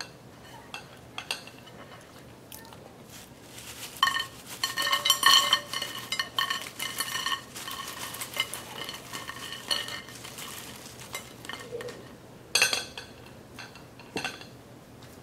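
Crisp fried potato sticks tipped from a stainless-steel mesh strainer onto a ceramic plate: scattered clicks, then a dense clatter with ringing clinks between about four and ten seconds in, and one more short clatter near the end.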